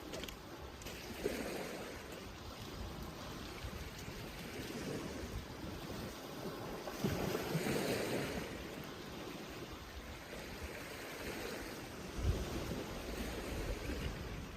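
Steady rushing outdoor noise of wind or moving water that swells about halfway through and eases off, with a few low thumps near the end.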